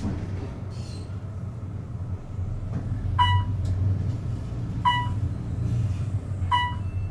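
Otis traction elevator, recently modernized with a Series M2 controller, travelling down: a steady low hum of the cab in motion. Three short electronic chimes about a second and a half apart sound as the cab passes each floor.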